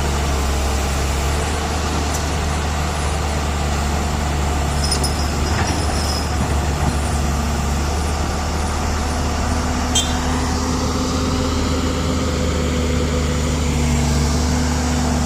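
Heavy diesel engine running steadily with a low drone. There is a faint high squeal about five seconds in and a single sharp click about ten seconds in.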